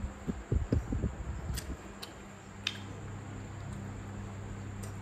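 Eating at the table: a few soft low thumps in the first couple of seconds and three light clicks of chopsticks against a porcelain rice bowl, over a steady low hum.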